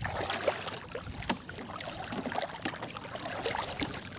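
Seawater sloshing and splashing around legs as people wade through the shallows, with small irregular splashes.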